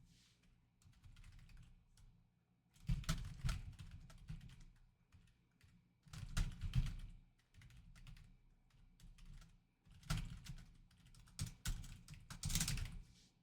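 Four short bursts of quick clicking and tapping, a few seconds apart.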